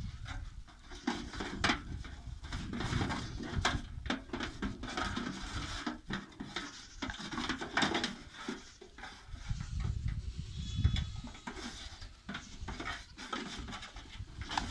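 Goat kids scrambling over a metal wheelbarrow: many uneven clicks and knocks of hooves and mouths on the metal pan, with an occasional short goat bleat.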